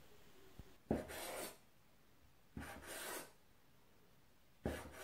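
Cleaver cutting strips of soft dough on a wooden cutting board. Three strokes about two seconds apart, each a knock of the blade on the board followed by a short rasping scrape.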